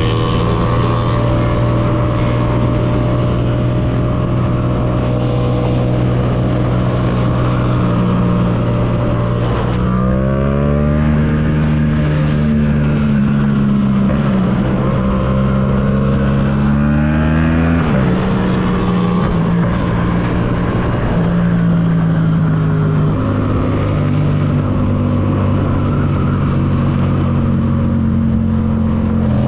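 Yamaha MT-07's 689 cc parallel-twin engine running on the move, holding a steady pitch. About ten seconds in it accelerates, the pitch climbing for several seconds, then drops back and settles into steady cruising, with a few small pitch steps.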